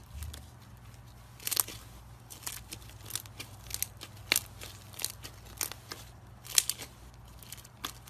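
Icee slime being pressed and squeezed, its crusty surface giving sharp, irregular crackles and crunches, about a dozen in all.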